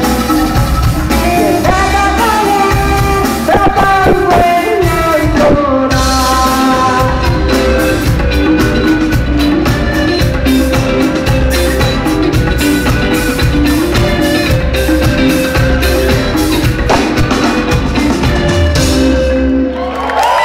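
Live rock band playing loud, a woman singing lead over electric guitars and a drum kit.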